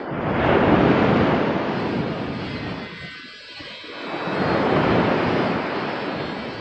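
Sea surf breaking on a sandy beach: two swells of rushing, hissing wash about four seconds apart, the first just after the start and the second near the end, with a brief lull between them.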